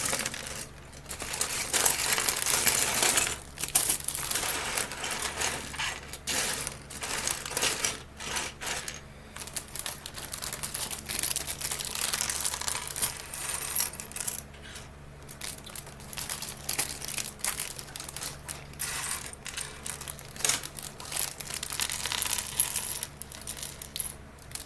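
Small plastic LEGO pieces clattering and rattling as they are emptied out of their bag and spread over a surface.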